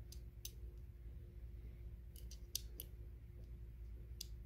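Scattered light, sharp clicks of small metal hardware being handled and fitted by hand, several close together about two seconds in, over a faint steady low hum.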